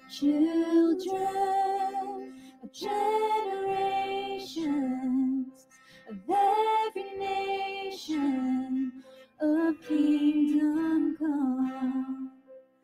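A woman singing a worship song in phrases separated by short pauses, accompanied by acoustic guitar and piano.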